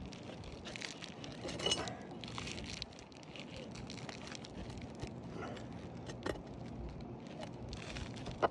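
Scraping, crinkling and scattered clicks of a tool and hands working on asphalt roof shingles, pulling out roofing nails to free a shingle for replacement. Sharper clinks stand out about two seconds in, past the middle, and near the end.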